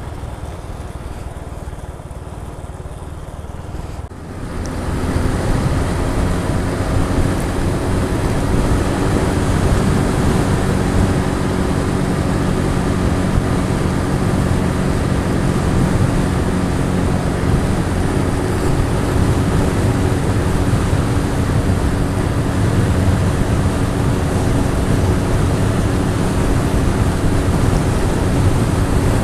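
Honda Pop 110i's small single-cylinder engine running under way, with wind and road noise on the bike-mounted microphone. It is quieter for the first four seconds, then swells about four seconds in as the bike picks up speed, and holds a steady engine note with a constant rush of wind.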